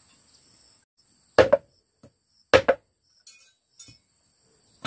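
A knife blade chopping down onto a wooden block twice, about a second apart, each a sharp clack with a slight metallic ring, followed by two faint taps.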